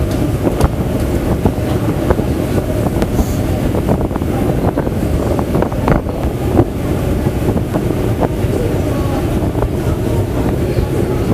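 Prague Metro train running through a tunnel: a loud, steady low rumble of wheels on rails, with scattered clicks and rattles throughout.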